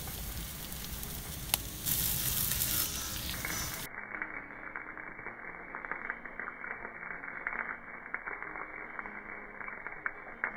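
Sábalo fish sizzling on a grill over embers. There is a louder, even hiss for about the first four seconds, then a quieter sizzle with small crackles.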